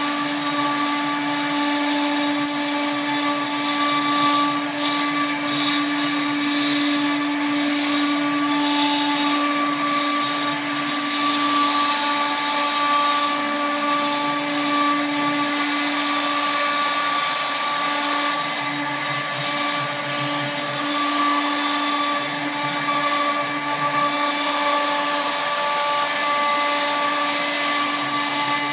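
CNC router spindle running steadily while its bit cuts grooves into a wooden board: a constant whine with a steady hiss of cutting.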